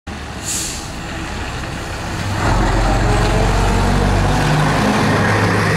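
Diesel engine of a vintage single-deck bus running as it passes close by, growing louder about two and a half seconds in. A short hiss about half a second in.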